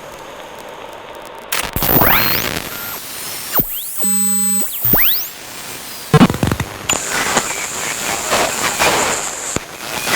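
A run of analog radio interference sounds: steady static hiss, then crackling static with whistles gliding up and down as if a receiver were being tuned, a short steady electronic tone about four seconds in, and from about six seconds crackling static under a high steady whine that cuts off suddenly near the end.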